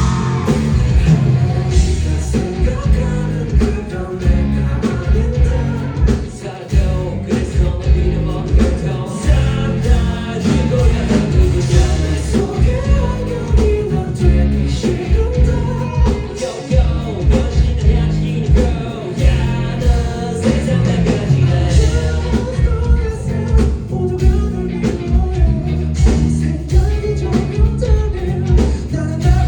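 A rock band playing live at full volume, with a sung lead vocal over a steady, heavy beat of drums and bass.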